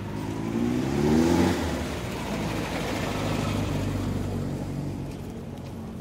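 A motor vehicle accelerating past in street traffic: its engine note climbs in pitch and is loudest about a second in, then gives way to a steady wash of traffic noise that fades toward the end.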